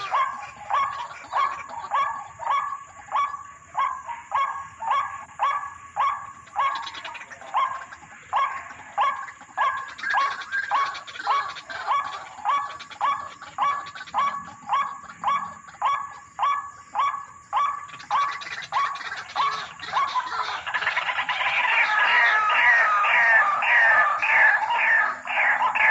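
White-breasted waterhen (ruak-ruak) calling: short, falling notes repeated about two or three times a second, growing louder and faster, with higher overlapping notes, about twenty seconds in.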